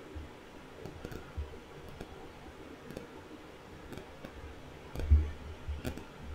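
Quiet room with faint scattered clicks and a dull low thump about five seconds in.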